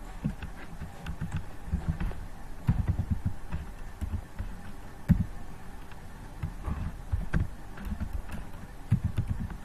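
Typing on a computer keyboard: irregular bursts of key taps with short pauses between them, over a low steady hum.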